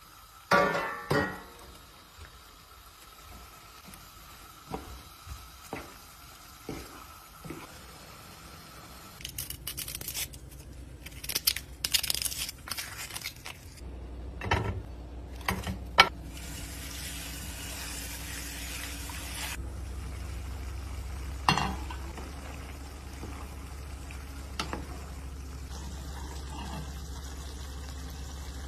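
Kitchen cooking sounds: a wooden spoon scraping and stirring chopped lamb liver in a nonstick frying pan, with knocks of pans and dishes. Partway through, a stretch of steady hiss, then a low hum that runs on under it.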